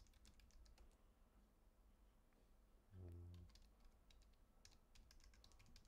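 Faint computer keyboard typing: scattered soft key clicks as a short phrase is typed. About halfway through comes a brief low hum lasting about half a second.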